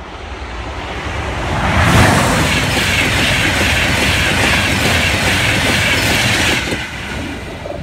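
High-speed electric passenger train passing at speed over a level crossing: a loud rush of wheels on rail with clickety-clack that builds over about two seconds and holds steady. It drops off suddenly near the end as the last coach clears, then fades.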